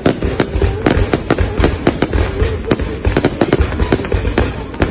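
Fireworks display: a dense, irregular run of sharp bangs and crackles from shells bursting, several a second, over a continuous rumble.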